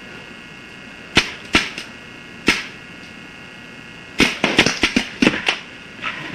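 Paintball markers firing: a few sharp pops spaced out over the first two and a half seconds, then a quick string of about nine shots from about four seconds in.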